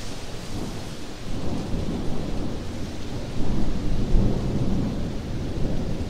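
Steady rain falling, with a low rumble of thunder that swells about three seconds in and eases off toward the end.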